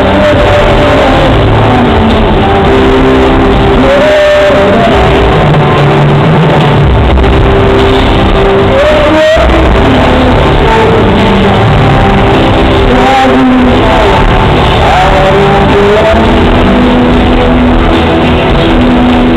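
A live rock band playing at a very high, constant level, recorded from among the audience, with long held notes over the music.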